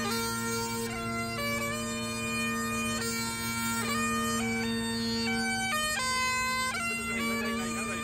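Bagpipes playing a lively tune over their steady drones, the chanter melody stepping quickly from note to note.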